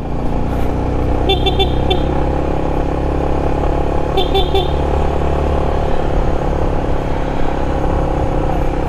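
Yamaha Sniper 155's single-cylinder engine running at a slow, steady cruise, with wind rushing over the helmet microphone. A horn gives two groups of quick short toots, about a second in and again about four seconds in.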